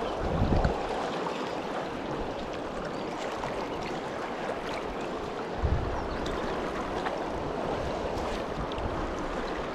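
Fast, high river water rushing steadily past, a full even wash of noise. Two short low bumps break through, about half a second in and again near six seconds.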